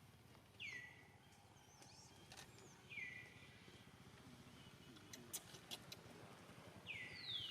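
Faint high animal calls, three times, each dropping quickly in pitch and then held briefly, with a few light clicks in between.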